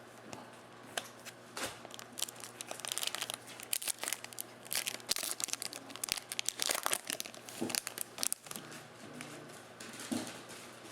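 Foil wrapper of a Topps Chrome baseball card pack crinkling and tearing as it is opened, a dense crackle that dies down about eight seconds in. A faint steady low hum lies underneath.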